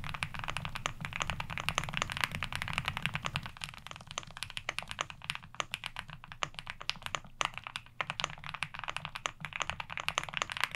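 Fast typing on a mechanical keyboard, a dense run of keystroke clacks. The keyboard sound-test recording plays first as recorded and then with light noise reduction applied.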